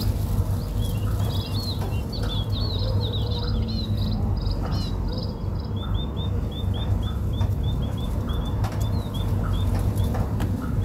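Small birds chirping: a jumble of quick high chirps in the first few seconds, then one bird repeating a short chirp about three times a second. Underneath runs a steady low rumble, with light rustling of a plastic sheet being handled.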